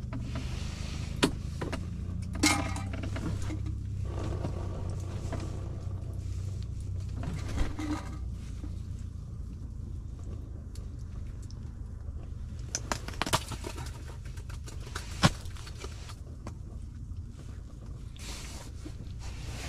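A steady low hum runs throughout, with scattered sharp clicks and knocks of gear being handled on the ice inside a fishing shelter.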